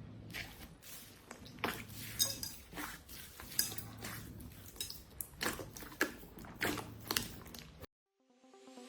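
Slime being handled, giving sharp sticky clicks and crackling pops roughly every half second. It cuts off near the end and electronic music begins to fade in.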